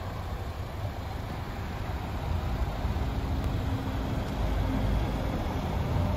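Low, steady vehicle rumble, heaviest in the bass, with a faint steady hum joining about halfway through.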